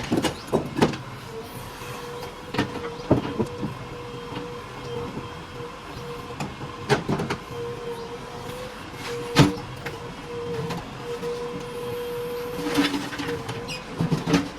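JCB 3DX Plus backhoe loader running under work, a steady whine underneath, with sharp metallic clanks and knocks every second or two, the loudest a little past halfway.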